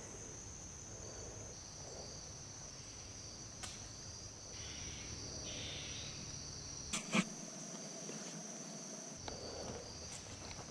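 Insects chirring in a steady high-pitched drone, with a few light clicks; the loudest two come close together about seven seconds in.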